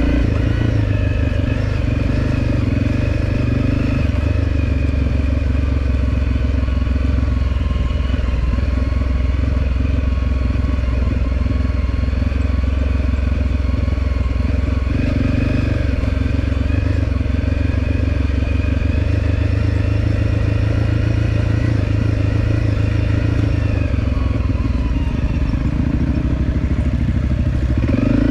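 Dirt bike engine running under way, its note holding fairly steady and shifting in pitch a few times, rising near the end.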